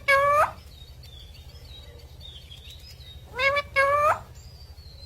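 Green ringneck parakeets calling: two pairs of short, rising squawks about three seconds apart, with faint chirps between them and a steady low hum underneath.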